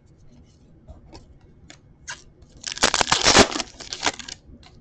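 A few light clicks of trading cards being handled, then a foil trading-card pack is torn open and its wrapper crinkled, a loud crackling that lasts about a second and a half.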